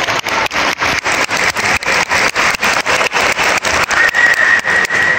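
Steady background noise of a crowded sports hall, with a steady high tone coming in about four seconds in.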